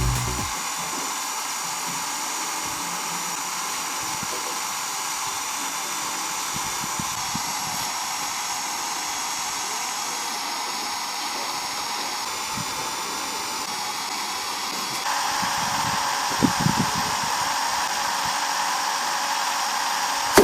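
Electric drill, converted to run on 12 V, running steadily with a motor whine. It gets louder about three-quarters of the way through, with a few light knocks soon after.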